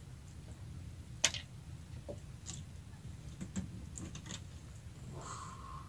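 Scattered small clicks and taps from hands working fishing tackle in a small boat: one sharp click about a second in, then several fainter ticks.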